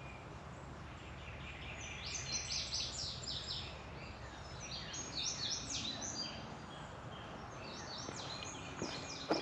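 Songbirds singing: three bouts of quick, high chirping notes, about two seconds in, around five seconds in and near the end, over a faint steady low background hum.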